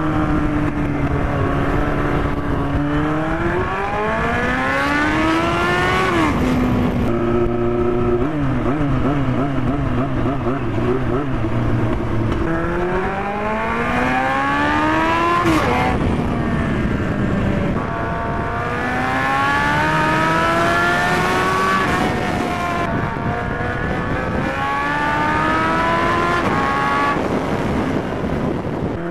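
Yamaha FZR1000 inline-four motorcycle engine running with no exhaust silencer, accelerating hard. The revs climb steeply, drop away at a shift or when the throttle is closed, and climb again about four times.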